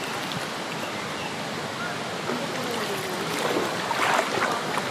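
Kaveri river water rushing at a waterfall, a steady noise of falling and flowing water. Faint voices come in partway through.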